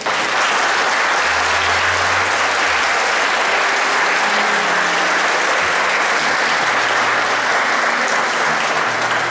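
Audience clapping steadily, breaking out all at once.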